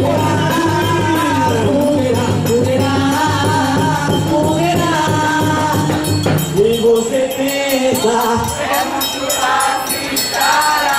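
Quadrilha junina music: voices singing a melody over a steady jingling percussion rhythm. The low bass stops about six seconds in, and the singing carries on.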